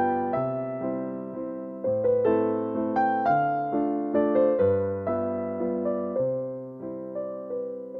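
Background music on a piano-style keyboard: a slow melody of struck notes that fade, over bass notes changing about every second and a half.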